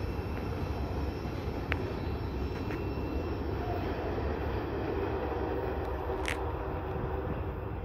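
Freight train of boxcars rolling away down the track, a steady low rumble.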